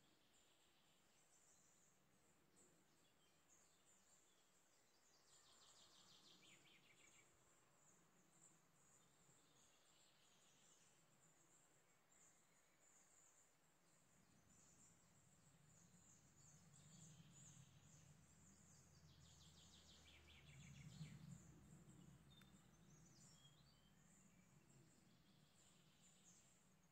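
Near silence: faint outdoor ambience with a steady high insect chirring, a few bird trills, and a faint low hum that swells in the second half.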